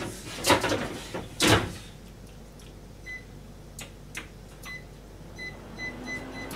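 Two loud clattering knocks of kitchen things being handled in the first two seconds, followed by a few lighter knocks. Then a string of short, high electronic beeps, like buttons being pressed on a kitchen appliance, and a low steady hum starts near the end.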